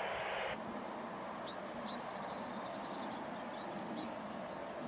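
A few short high bird chirps and a brief quick trill over a steady outdoor background rumble; a louder hiss drops away about half a second in.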